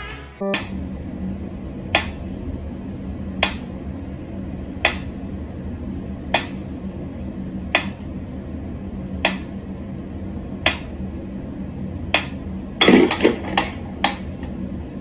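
Mechanical pyramid metronome ticking slowly and evenly, one tick about every second and a half. Near the end there is a brief clatter of several louder, irregular knocks.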